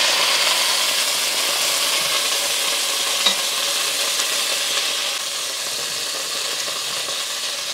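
Chicken pieces frying in oil in a cast iron Dutch oven: a steady sizzling hiss that eases a little after about five seconds. A single light click about three seconds in.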